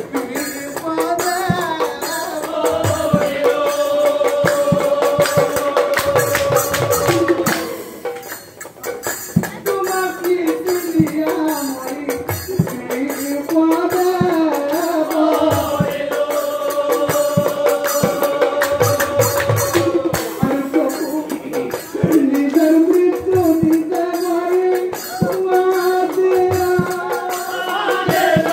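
Nagara naam, Assamese devotional folk singing: men's voices singing long held, slowly gliding phrases, over small hand cymbals struck in a steady rhythm and drum beats. There is a short break between phrases about eight seconds in.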